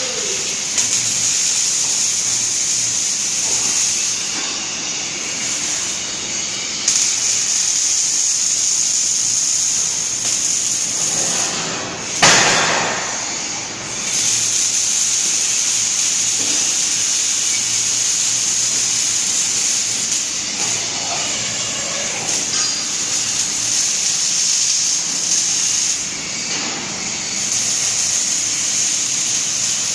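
Six-axis robot's torch working with a steady hiss that has a high, bright edge, with a brief loud burst about twelve seconds in.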